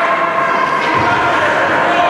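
Ice rink game ambience: spectators' voices over a steady hum, with a faint knock from play on the ice about a second in.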